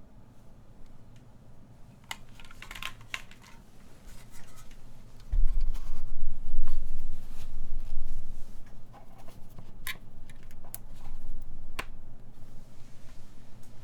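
A few scattered single clicks and light rattles from an Iron180 custom mechanical keyboard with lubed Epsilon switches, not yet steady typing. About five seconds in, a deep low rumble starts suddenly. It is the loudest sound and dies away over a few seconds.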